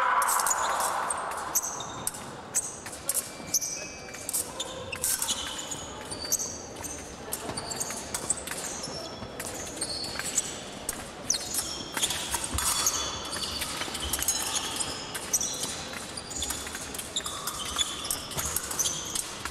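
Épée blades clashing in short metallic clicks and rings during a bout, together with fencers' feet stamping and shuffling on the piste.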